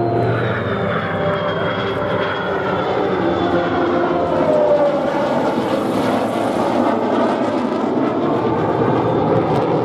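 An F-22 Raptor jet flying past in formation with three piston-engined P-51 Mustangs: a steady, loud engine roar with a faint high whine that falls in pitch over the first two seconds.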